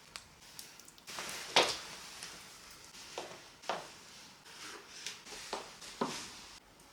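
Rustling and crinkling from material being handled, in a string of short irregular scuffs and crackles; the loudest comes about a second and a half in.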